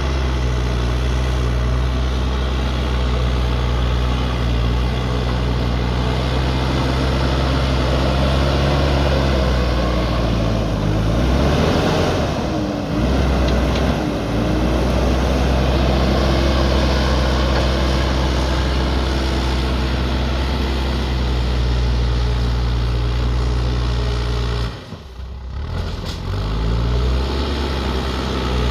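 A JCB backhoe loader's diesel engine running steadily under work. Its pitch shifts up and down about halfway through, it dips briefly near the end, then it picks back up.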